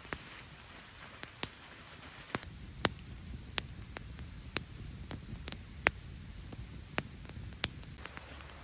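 Campfire crackling, with sharp, irregular pops from the burning wood over a low steady hiss.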